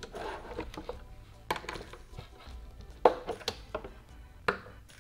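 A screwdriver working the mounting screws of a CPU liquid cooler's pump block, giving a handful of sharp, scattered clicks and taps as the screws are tightened down in turn; the loudest comes about three seconds in. Faint background music runs underneath.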